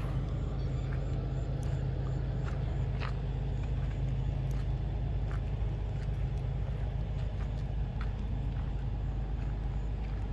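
Diesel engine of heavy earthmoving machinery running steadily, a low even hum that does not change, with a few faint clicks scattered through it.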